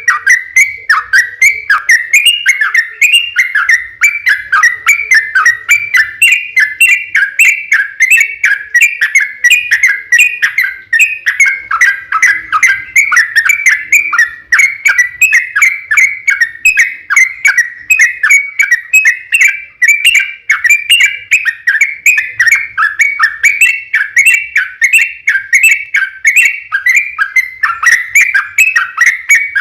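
Sooty-headed bulbul (trucukan) singing a long, unbroken run of short, rapid whistled notes, several a second, with no pauses.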